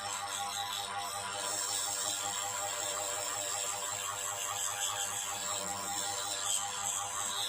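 Background music over the steady whir and grinding of a small drill bit cutting into a glued eMMC chip on a phone circuit board.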